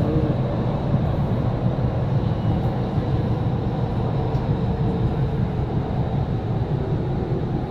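Driverless Doha Metro train running through a tunnel, heard from inside the front car: a steady low rumble of wheels and running gear.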